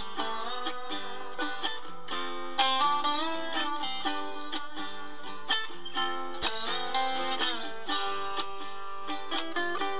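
Background music played on a plucked string instrument: a quick, continuous run of short plucked notes.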